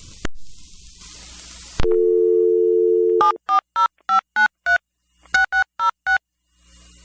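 Telephone line picked up with a click and a moment of hiss, then a steady two-note dial tone. It gives way to touch-tone keypad beeps dialing a number: a quick run of about six, a short pause, then about four more.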